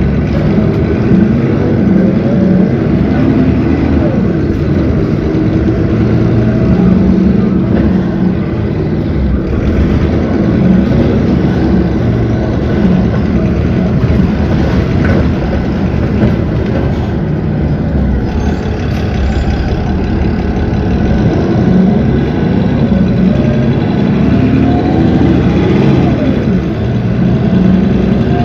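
Cummins ISB 6.7 six-cylinder diesel engine of a city bus running steadily under way, with a whine that rises in pitch twice as the bus accelerates.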